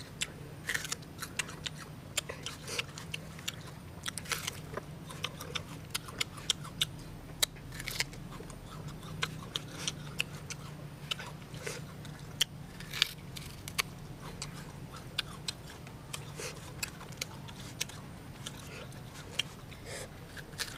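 Person biting and chewing crisp unripe green banana dipped in chili salt: irregular sharp crunching clicks, several a second, over a faint steady low hum.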